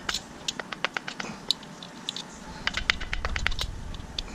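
Sharp metal clicks and clinks in two quick flurries as a main bearing cap is wiggled and pulled loose from a Dodge Caliber SRT4 engine block, the first in the opening second and a half and the second about three seconds in.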